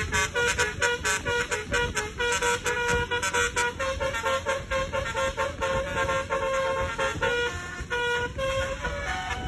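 Basuri telolet horn, a multi-tone vehicle air horn, playing a quick tune of short notes that change pitch several times a second, with a low rumble underneath.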